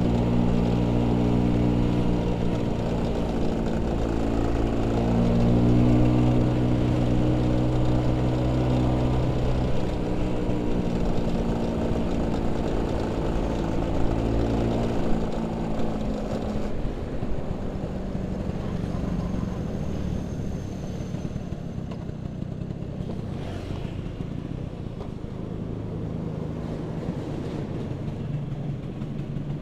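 Vespa P150S scooter's two-stroke single-cylinder engine running under way, heard through rushing wind and road noise, its note shifting as the speed changes. About halfway through, the steady engine tone fades into a quieter, rougher rumble as the scooter slows. A low steady engine note returns near the end as it runs slowly or idles.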